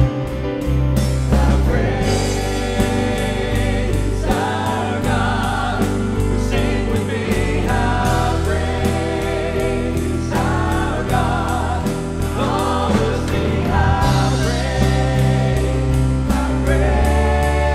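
Praise team singing a contemporary worship song over a band, with a steady beat and strong bass.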